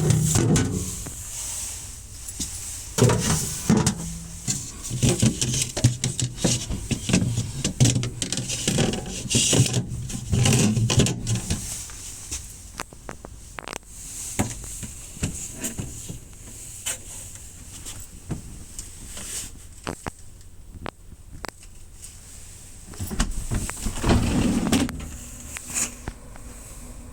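Handling sounds of a compact two-door refrigerator: a string of clicks, knocks and rubbing as its parts are opened, shut and moved. The sounds come heaviest in a long stretch early on and again briefly near the end.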